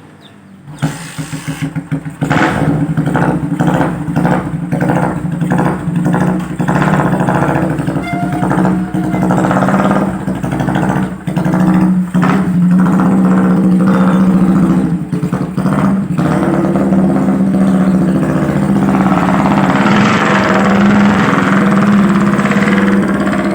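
Yamaha Scorpio single-cylinder four-stroke engine in a custom chopper motorcycle starting up about a second in, then running unevenly as the throttle is blipped over and over. From about two-thirds of the way through it runs steadily at higher revs, rising for a while.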